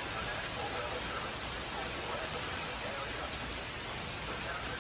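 Steady hiss of static from a radio receiver on a weak weather-radio signal, with a faint voice barely audible underneath.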